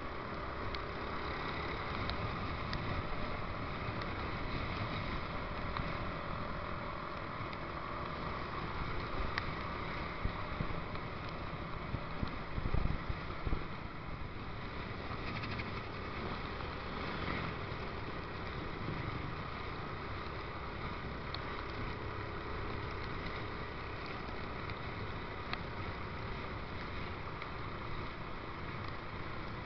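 Steady riding noise from a motorcycle on a wet road: engine running under way with wind and tyre noise, picked up by an action camera's built-in microphone in a waterproof case. A few short louder bumps come around twelve to thirteen seconds in.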